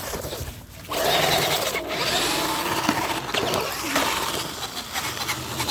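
Small electric motor of a radio-controlled toy truck whining as it drives. It starts about a second in, and the whine rises and falls with the throttle.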